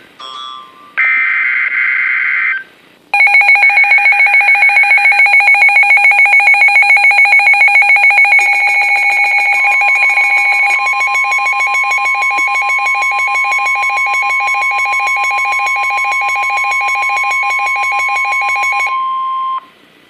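NOAA Weather Radio emergency alert. The last burst of the shrill warbling SAME data header ends, then the Midland weather radios break into fast, loud pulsing alarm beeps for about sixteen seconds. About ten seconds in, the steady 1050 Hz warning alarm tone sounds under the beeping, and both cut off together shortly before the end.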